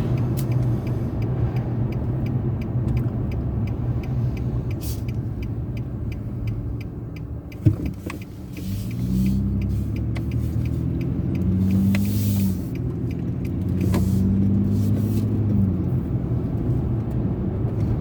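Car driving with steady engine and road rumble. It eases off, with a sharp thump about eight seconds in, then pulls away, the engine note climbing and dropping back twice as it gathers speed.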